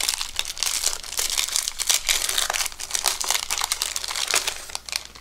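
Paper wrapper of a 1991 Bowman baseball card pack being torn open and peeled off the cards: a dense run of crinkling and crackling that dies away near the end.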